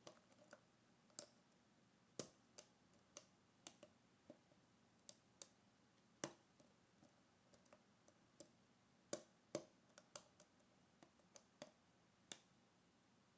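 Lock picking: a short hook working the serrated pins of a modified Brinks deadbolt cylinder under tension, giving quiet, irregular clicks about two a second as the serrations catch and pins set.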